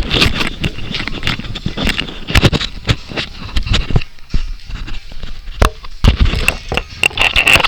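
Irregular knocks, clicks and rustling of close-up handling noise, as the camera on a flexible-legged tripod is jostled and grabbed. It quietens for a couple of seconds in the middle, then the knocking picks up again.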